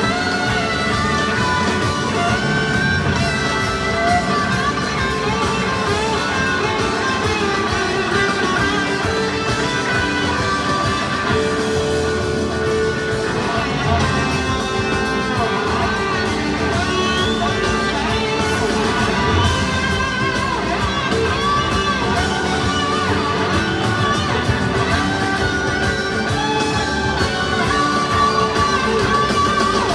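Live rock band playing in a large arena, heard from the crowd: electric lead guitar lines that bend and glide in pitch over drums and bass in an extended instrumental jam.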